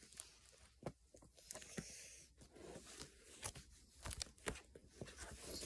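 Plastic pocket pages of a card binder being handled and turned: faint rustling and crinkling of the sleeves, with a scatter of soft clicks and taps.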